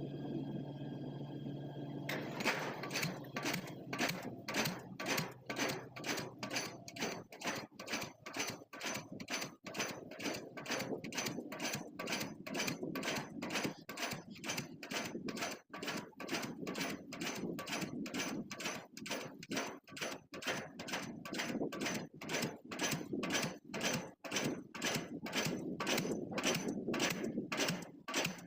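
Diesel pile hammer striking a pile in a fast, steady rhythm of sharp blows, a couple a second, starting about two seconds in over the steady hum of the crane's engine.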